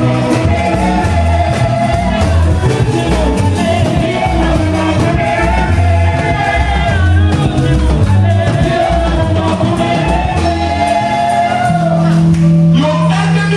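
Church praise music: a lead voice singing over a band with bass and drums.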